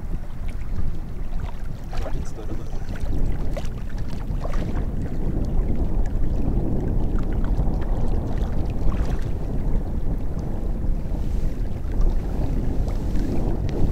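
Wind buffeting the microphone: a steady low rumble that grows a little toward the end, with faint scattered clicks over it.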